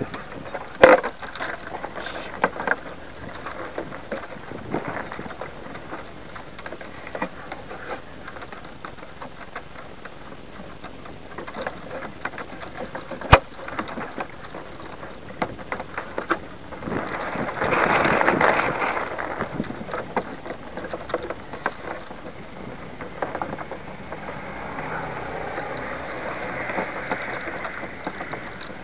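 Gusting wind over a radio-controlled sailing yacht, picked up by a camera on its deck, with the rigging rattling and ticking. Two sharp knocks stand out, one about a second in and one near the middle, and a stronger gust swells up just past the middle.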